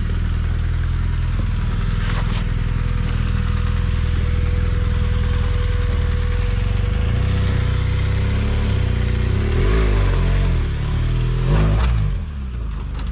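Twin-cylinder adventure motorcycle engine idling steadily, then revving up and down several times over the last few seconds as the bike is ridden up over rocks.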